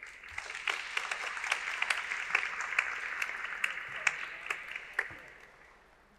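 Audience applauding: many hands clapping together, starting at once, holding for about five seconds and then dying away.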